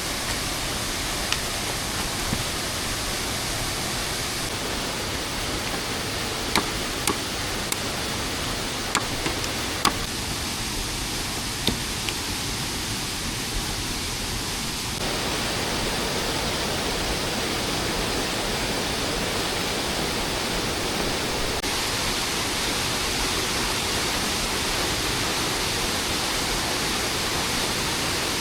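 Steady hiss of falling rain with a few sharp clicks and taps in the first half, becoming a little louder about halfway through.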